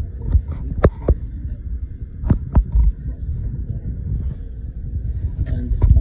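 Low, uneven rumble of a handheld phone being moved around inside a freezer compartment, with a few sharp clicks: two about a second in, two more around two and a half seconds in, and one near the end.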